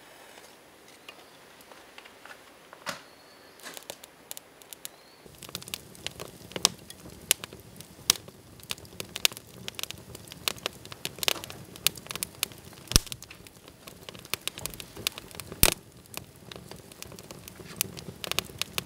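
A freshly lit wood fire of split kindling and newspaper catching, with sparse snaps at first. About five seconds in it settles into steady crackling and popping over a low rush of flame as the kindling takes.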